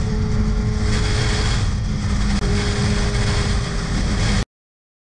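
Motorcycle riding at a steady speed: a steady engine hum under a loud rushing noise. It cuts off abruptly about four and a half seconds in.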